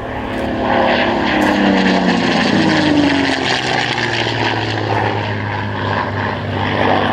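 P-51 Mustang's V-12 piston engine and propeller in a fly-past, the engine note falling steadily in pitch over the first few seconds as the plane passes, then holding lower.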